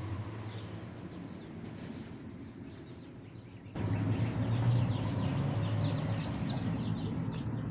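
A flock of goslings and ducklings peeping in short, high, falling chirps that grow busier about halfway through, over a steady low hum that also gets louder at that point.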